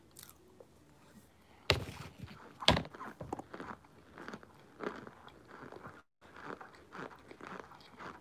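A person biting into and chewing a spoonful of oven-baked white powder chunks close to the microphone: two loud crunches a little under two seconds in, then steady crunchy chewing.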